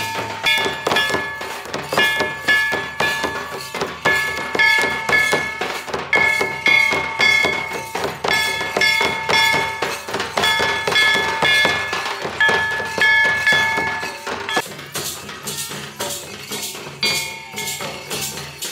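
Live Santal festival drumming: double-headed barrel drums (tumdak') and large kettle drums (tamak') beaten in a fast, dense rhythm. Over it runs a high melody of short held phrases, which thins out about fifteen seconds in while the drums carry on.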